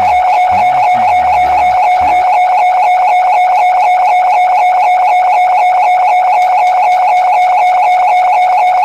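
A loud, sustained high tone that pulses rapidly and does not change pitch. For about the first two seconds, low sliding tones swoop up and down underneath it.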